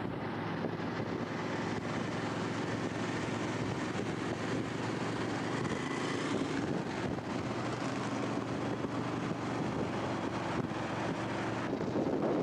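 Steady engine drone of a moving vehicle mixed with wind and road rush, holding an even level, with a slight rise near the end.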